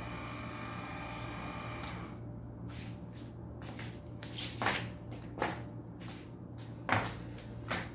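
Massager's DC motor running and turning the kneading heads with a steady whir, cut off with a click about two seconds in as the unit is switched off. A few scattered clicks and knocks follow over a low hum.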